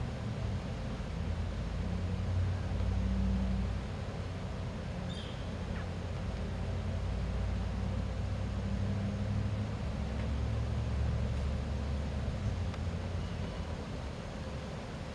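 A low rumble that swells and fades over several seconds, engine-like, with a faint short high chirp about five seconds in.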